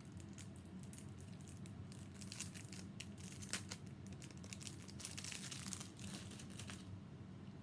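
Packaging of a makeup eye design set being handled and unwrapped, crinkling and tearing in quick crackly bursts that stop about seven seconds in, over a steady low hum.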